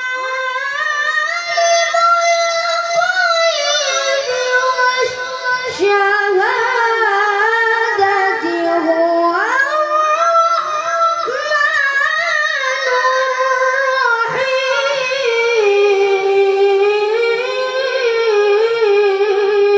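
A single high voice chanting unaccompanied, holding long, ornamented notes that waver and slide between pitches with only short breaths between phrases, in the melodic style of Quran recitation (tilawah).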